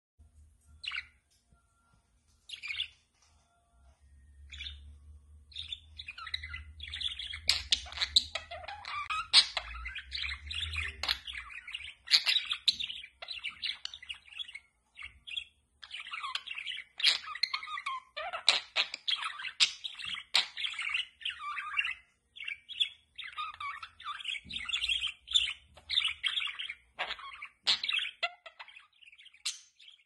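Pet budgerigar chattering and warbling: a few single chirps at first, then a near-continuous run of quick chirps and warbles from about six seconds in.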